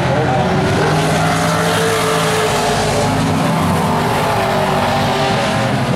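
Vintage modified race cars' engines running at racing speed, several at once, making a steady, loud drone whose pitch drifts up and down as the cars circle the oval.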